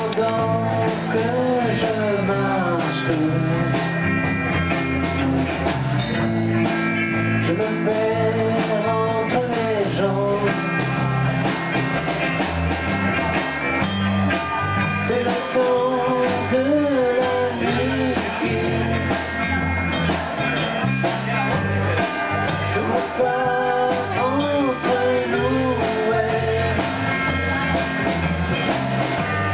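Live band performance of a rock song: electric guitar played under sung vocals, with a steady low accompaniment throughout.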